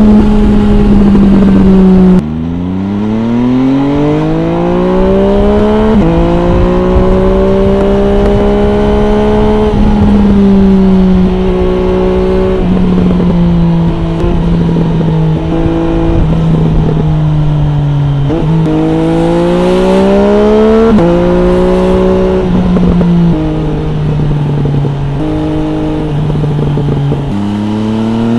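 MV Agusta Brutale 800 RR's three-cylinder engine through an MV Agusta Corse trio exhaust, accelerating hard through the gears: the pitch climbs, then drops back at each gear change, about every two to three seconds. A sudden drop in loudness about two seconds in is followed by a long rising pull.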